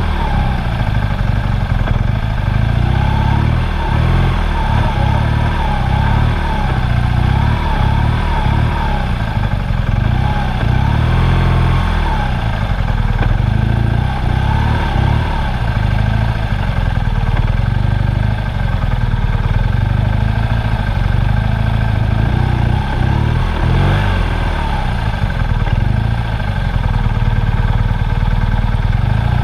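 Onboard sound of a motorcycle riding a circuit: the engine running with its pitch rising and falling through the corners, under a heavy rumble of wind on the microphone.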